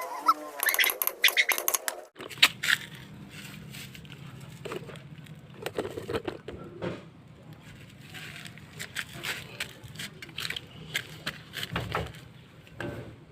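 Irregular metallic clanks and knocks of tools working a jeepney's rust-seized brake drum off the wheel hub, with a steady low hum starting about two seconds in.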